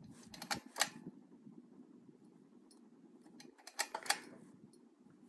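Hunter Westminster ceiling fan running on high with a steady low hum. Two clusters of sharp clicks come through, about half a second in and about four seconds in.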